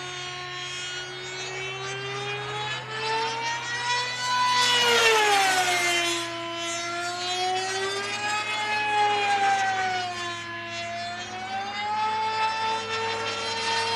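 The tuned-pipe engine of a high-speed RC delta-wing model plane running at high revs, a high whine whose pitch rises and falls several times as the plane passes and turns overhead. It is loudest about five seconds in.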